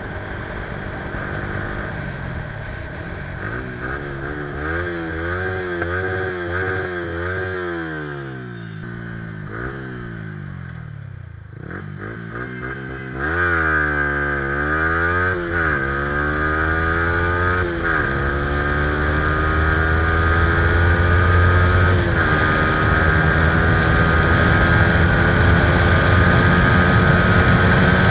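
Single-cylinder sport motorcycle with an aftermarket exhaust, revved repeatedly so the engine note rises and falls several times. About halfway through the sound gets louder, and it then settles into a held, slowly climbing rev.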